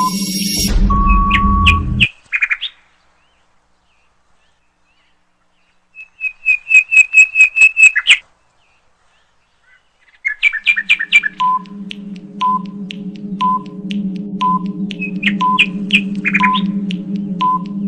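Quiz-game sound effects. A low buzz with a steady tone in the first two seconds, then a rapid run of about ten high electronic chirps midway. After a silent gap a droning synth bed starts, with a short beep about once a second as a countdown runs.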